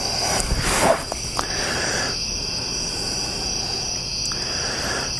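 Night insects trilling in a steady, high drone, with a brief loud rustle about half a second in.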